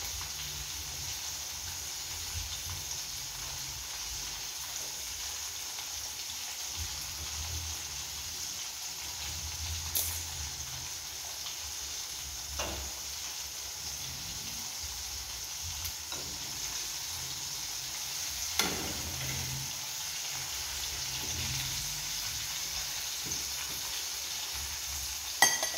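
Hot oil sizzling steadily in a frying pan on a gas stove as food fries, with a few sharp clicks or knocks, the loudest near the end.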